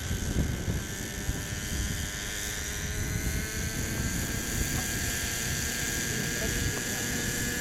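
Thunder Tiger Raptor 50 nitro radio-controlled helicopter hovering low, its glow engine and rotor running with a steady high whine that edges up in pitch near the end.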